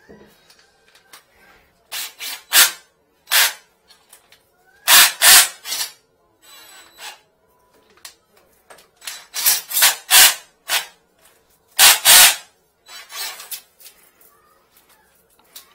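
Flexible-shaft drain-cleaning cable being pulled by hand off its drum reel: loud, irregular scraping and rubbing strokes of the cable sliding over the reel, in several groups.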